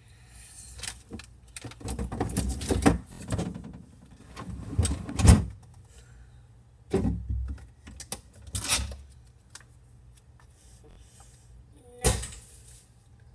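Rummaging through a refrigerator: irregular knocks, clinks and rustles of jars, bottles and packages being shifted on the shelves, with a sharp thump about five seconds in and another near the end.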